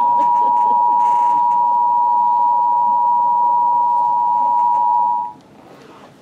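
Steady test tone of the kind played with a colour-bar "Please Stand By" test card, the standby signal for an interrupted broadcast. It holds at one pitch and cuts off suddenly a little over five seconds in.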